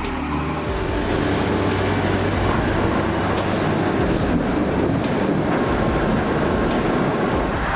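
A heavy vehicle's engine running steadily under load, with a dense, continuous rumble.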